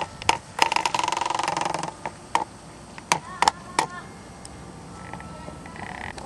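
Running footsteps, a string of sharp taps and knocks. About half a second in comes a brief voice-like cry of a little over a second.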